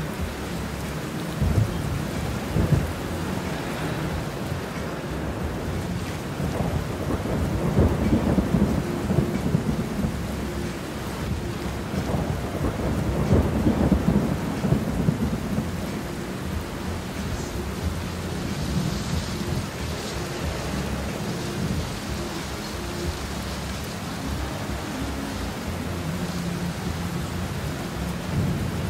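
Heavy rain pelting a car's windshield and roof, heard from inside the cabin as a dense, steady patter over a low rumble that swells louder twice.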